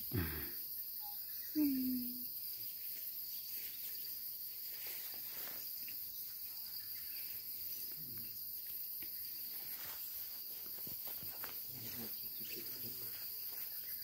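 Steady high-pitched insect chorus of crickets, with two short low voice sounds in the first two seconds, the first dropping sharply in pitch.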